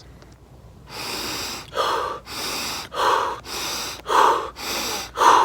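A man doing Wim Hof breathing: rapid, deep breaths in and out through the mouth, about one breath a second, starting about a second in.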